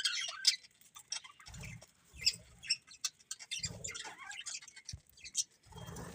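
Budgerigars chattering softly in short high chirps, squeaks and clicks, with a few low dull thumps in between.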